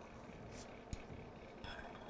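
Faint kitchen handling sounds of a spoon working muffin batter into a muffin tin: a soft scrape, a sharp tap about a second in, and a brief ringing metallic clink near the end.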